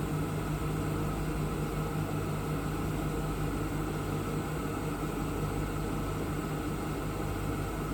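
Steady machinery hum with a low, constant tone and no change in pitch or level.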